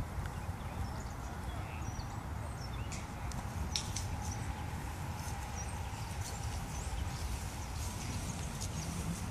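Wind buffeting an outdoor microphone with a low, uneven rumble, while small birds chirp and sing in the surrounding trees. A couple of sharp clicks come about three to four seconds in.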